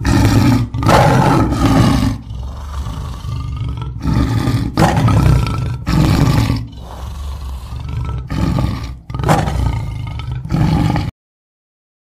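A tiger roaring several times in loud swells, with lower rumbling growls between them. The sound cuts off abruptly near the end.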